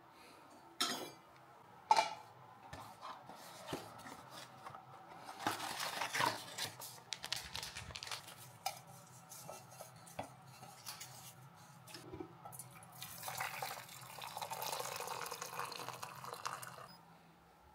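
A stainless steel mug knocking twice as it is taken off a shelf, some rustling and small clicks as a tea bag is handled, then hot water poured from a kettle into the steel mug for about four seconds, stopping shortly before the end.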